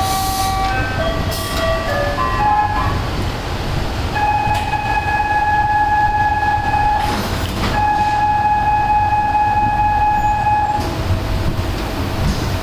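Electronic warning signals from a Komori Lithrone offset press's control panel, over the low hum of the machine. The end of a short chime tune comes first, then after a pause a steady beep holds for about six seconds. About halfway through the beep it is broken briefly by a burst of hiss.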